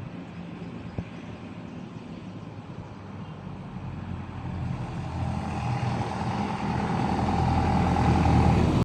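A motor vehicle's engine running, growing steadily louder through the second half as it draws closer. A single sharp click about a second in.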